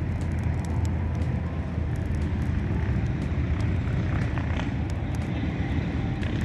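Campfire crackling, with sharp pops scattered throughout, over a loud, steady low rumble.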